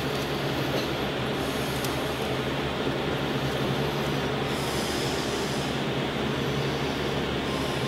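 Steady machine hum with a constant hiss of room noise, and a couple of faint clicks.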